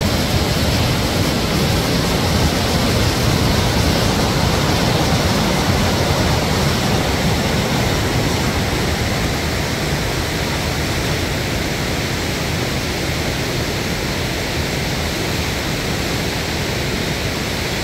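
Lava Falls, a big whitewater rapid, rushing steadily: a constant, even noise of crashing water with no breaks.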